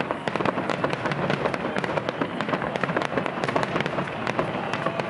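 Japanese-style hanabi fireworks: a dense, continuous crackle of many rapid small pops and bangs.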